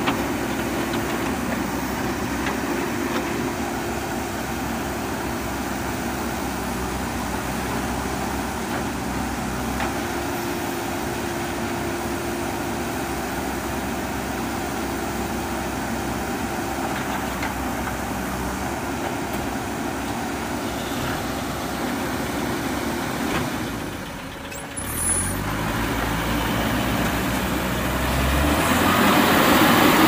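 Diesel engines of a JCB backhoe loader and an Eicher tipper truck running steadily during loading. After a short break about three-quarters of the way through, the engine hum changes and grows louder near the end.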